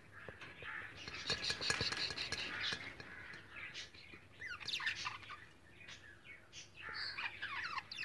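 Budgerigars chirping and chattering: a dense run of rapid chirps in the first few seconds, then quick sweeping chirps about midway and again near the end.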